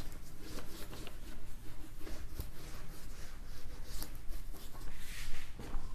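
Scratchy strokes of a pen or marker writing out a sentence, in short irregular scrapes and taps.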